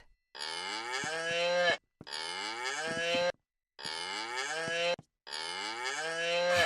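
Children's animal-sound toy playing a cow's moo, the same moo repeated four times in a row, each lasting about a second and a half and swelling toward its end.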